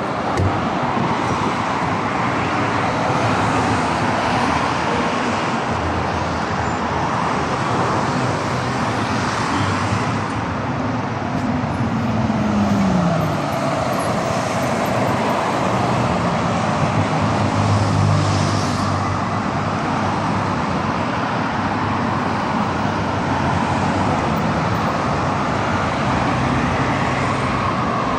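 Steady road traffic on a city boulevard, with cars and heavier vehicles going by. About halfway through, one vehicle's engine note falls in pitch as it slows or passes, and a low engine hum swells a few seconds later.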